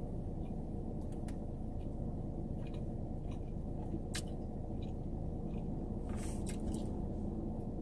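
Close-up mouth sounds of someone chewing a Subway tuna sandwich on wheat bread, with scattered small wet clicks and smacks, over a steady low hum.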